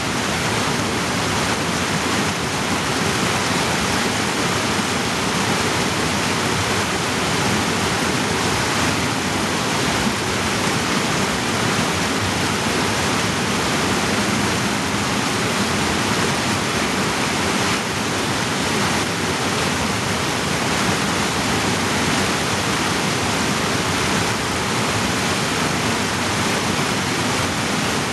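Mountain creek rushing and cascading over boulders in a narrow rock gorge: a loud, steady roar of white water.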